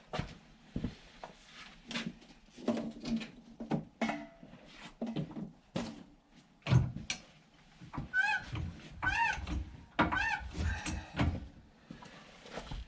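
Scattered knocks and clunks of tools and wheel hardware being handled, with three short high-pitched whines about a second apart past the middle.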